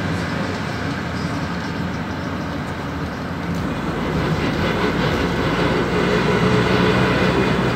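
Engine and road noise of a PAZ 32054 bus heard from inside the cabin while it drives, a steady rumble that grows louder about halfway through.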